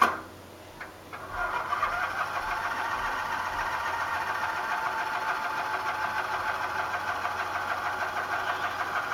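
A sharp click, then a tractor engine being cranked on its starter, a steady fast pulsing churn that keeps going without the engine catching: the tractor won't start.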